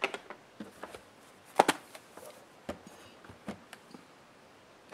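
Handling knocks from an aluminium-cased laptop being turned over and set down on a work surface: a scatter of short taps and clunks, the loudest a quick double knock about a second and a half in.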